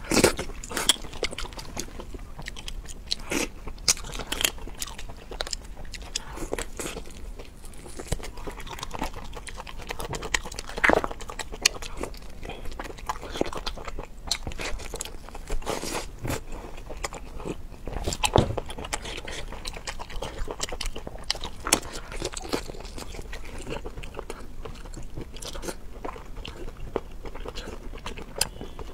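A person eating close to the microphone: repeated bites and chewing, with irregular sharp clicks, a few of them much louder than the rest.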